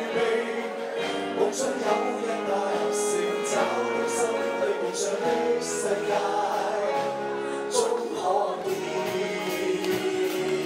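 Two men and a woman singing a Cantonese pop song together in unison with a live band, sung notes held over a backing of drums with repeated cymbal hits.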